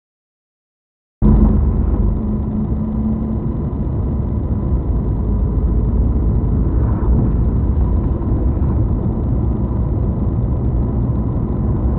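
About a second of dead silence, then the steady engine and road noise of a car driving, picked up by a dashboard camera's microphone, with a faint steady high whine over it.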